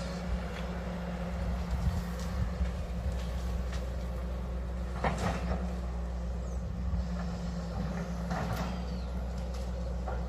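Hydraulic excavator's diesel engine running steadily, with a few short knocks or scrapes from the working machine, the clearest about halfway through and near the end.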